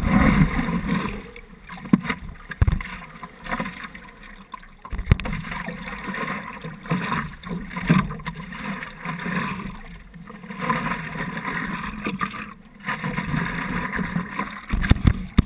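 Seawater sloshing and slapping against the nose of a board riding over small swell, swelling and fading irregularly, with scattered sharp splashes and knocks.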